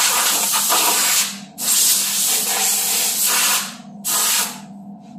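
Compressed-air blow gun hissing as it blows dust off a miter saw, in three blasts: one that stops about a second in, a longer one of about two seconds, and a short one near the end. A steady low hum runs underneath.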